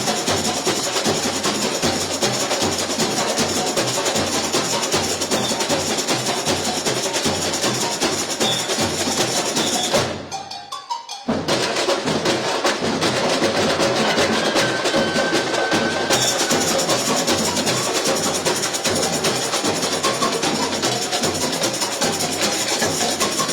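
University samba bateria playing a samba groove on drums and small percussion, dense and rhythmic. About ten seconds in the whole ensemble stops abruptly for about a second, then comes back in together.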